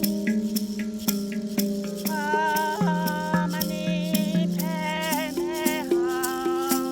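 Meditative yoga music: a shaker rattle keeps a steady beat of about two shakes a second over a sustained low drone. About two seconds in, a wavering melodic line with vibrato comes in on top.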